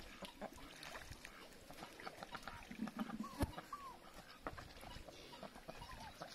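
Faint sounds of ducks on a small pond: scattered soft ticks and splashes as they swim and dabble, with a few short chirping calls a little past the middle.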